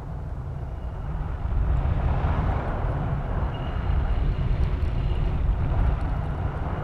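Wind rushing over the microphone of a camera on a high-altitude balloon payload in flight: a steady rumbling hiss that grows louder about two seconds in.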